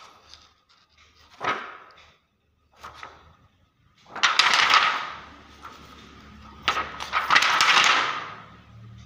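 Stiff 125-micron clear polyester film sheet crackling and rustling as it is flexed and handled. A short crackle comes about a second and a half in, then two longer, louder bouts of crinkling from about four and about seven seconds in.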